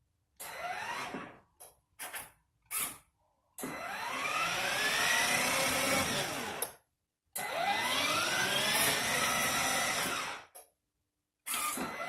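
Electric drive motors and gearboxes of a children's ride-on car whirring under remote control. A few short bursts come first, then two longer runs of about three seconds each, the pitch rising as the motors spin up and falling as they stop.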